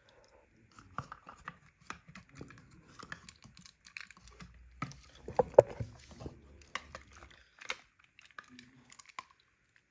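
Irregular small clicks, taps and rubbing as a die-cast Hot Wheels car is handled and rubbed in water to wash off its colour coating, with a low rumble in the middle and the sharpest knock about halfway through.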